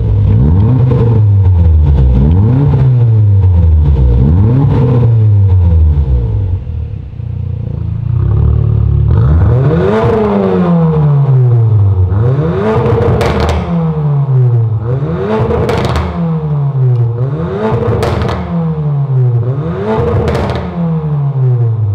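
Porsche Macan 2.0T's turbocharged four-cylinder revved repeatedly through an aftermarket ARMYTRIX valve-controlled cat-back exhaust with the valves open, in an underground car park. Several short blips come first, then about half a dozen longer revs that each climb and drop back to idle.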